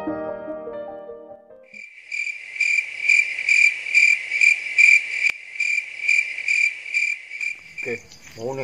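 Crickets chirping in an even pulsing rhythm, about two chirps a second, starting once soft piano music has faded out in the first two seconds. Near the end a higher, faster cricket trill takes over.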